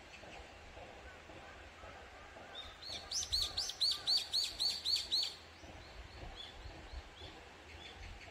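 A songbird singing a fast run of about ten repeated, arched high notes, loudest a few seconds in and lasting about two and a half seconds, followed by fainter, scattered notes.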